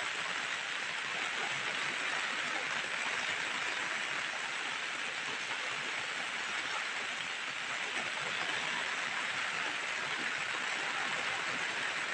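Steady rain falling, an even hiss that keeps up without a break.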